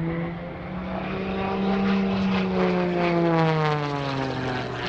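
MXS-RH aerobatic monoplane's piston engine and propeller running hard in flight. Its pitch falls steadily over the last couple of seconds.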